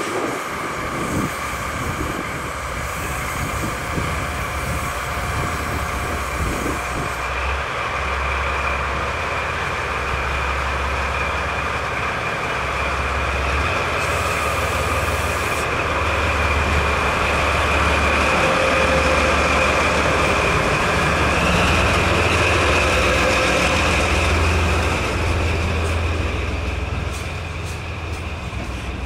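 A freight train running past, with a heavy low rumble over steady wheel-on-rail noise. It builds to its loudest about two-thirds of the way through and eases off near the end.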